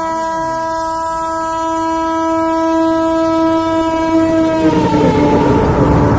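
Electric goods train's horn held in one long, steady blast that cuts off about three-quarters of the way through, followed by the loud rumble and rush of the train passing at high speed.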